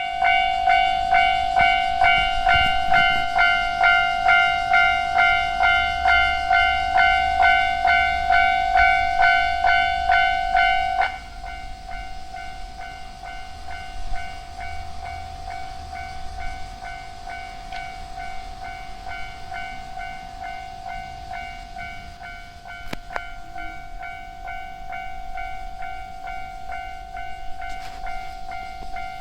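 Japanese level-crossing warning bell ringing, about two dings a second. About eleven seconds in it drops suddenly to a much quieter level and keeps ringing.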